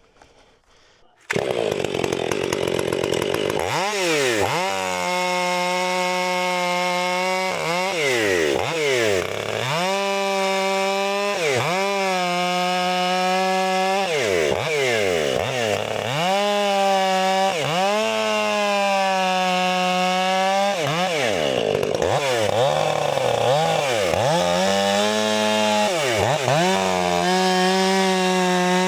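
Two-stroke gas chainsaw that comes in suddenly about a second in and runs at high revs cutting wood. Its pitch dips and climbs back again and again as the chain bites and clears.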